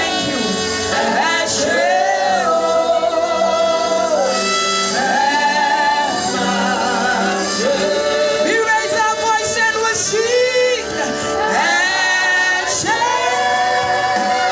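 Men and women singing together in a gospel worship song, voices holding long notes and sliding between them.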